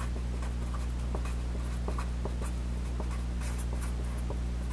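Sharpie felt-tip marker writing on paper in short scratchy strokes, over a steady low electrical hum.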